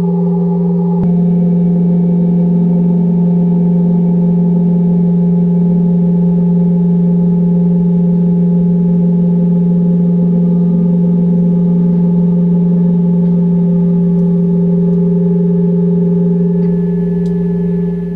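Steady electronic tones played through a speaker: a loud low droning tone with several higher steady tones layered over it. The mix of upper tones shifts slightly about a second in, and the whole drops a little in level near the end.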